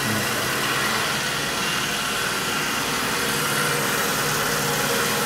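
Steady hum of running machinery, even throughout.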